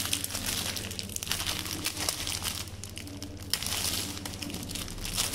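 Thin plastic packaging crinkling and crackling irregularly as it is handled and pulled open by hand.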